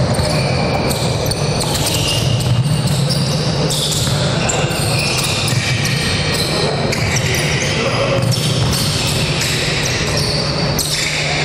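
A basketball being dribbled on a hardwood gym court during live play, over a steady low hum.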